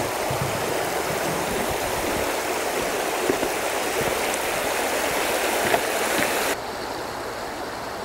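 Rushing water of a shallow mountain stream running under a footbridge, a steady roar. About six and a half seconds in it drops abruptly to a quieter level.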